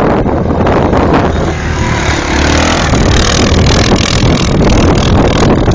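Engine noise of an ATV riding hard through snow, running steadily at speed, with wind buffeting the microphone.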